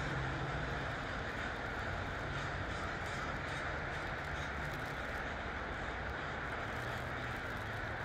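Steady din of a huge flock of crows calling overhead, the caws blurred into a continuous wash, over a low steady hum.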